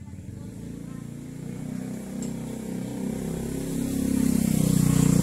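A motor vehicle's engine running, growing steadily louder to a peak near the end, as a vehicle comes close.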